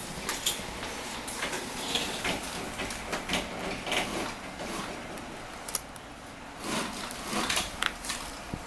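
Scattered light clicks and taps of small tools and metal phone parts handled on a workbench while an iPhone is taken apart, over shop background noise, in a sped-up recording.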